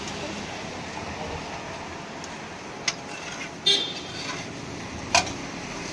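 Metal spatula scraping and tapping on a flat dosa griddle over a steady hiss of street noise. Two sharp clicks come, about halfway and near the end, with a brief high-pitched toot between them.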